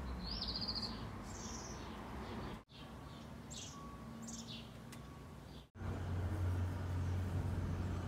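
Small birds chirping, a handful of short high calls, over a steady low rumble of wind on the microphone. The sound cuts out briefly twice.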